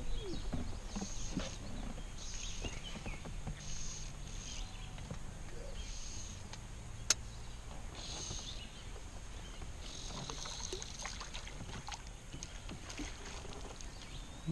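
Water sloshing along an aluminium drift boat's hull as the oars dip in the current, with a short hiss about every second and a half. There is one sharp click about seven seconds in.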